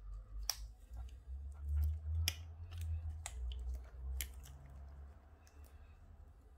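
Gloved fingers handling and turning a cardboard iPhone X box: scattered sharp clicks and light scrapes of the box against the fingers, over a low rumble.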